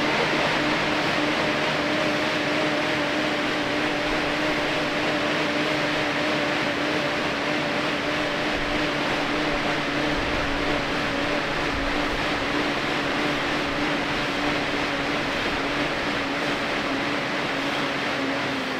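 Air bike's fan spinning fast under hard pedalling: a loud, steady whoosh with a constant hum, its pitch falling right at the end as the pedalling eases.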